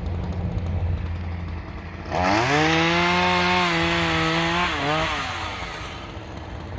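Two-stroke chainsaw idling, then throttled up sharply about two seconds in and held at high revs for a couple of seconds, with a brief dip near the end before the throttle is released and it drops back toward idle.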